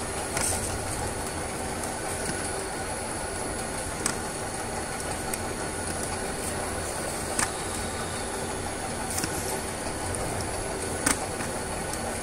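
Steady hum and high whine of running filling-line machinery, with a few sharp clacks as filled bottles are set on and taken off a digital scale.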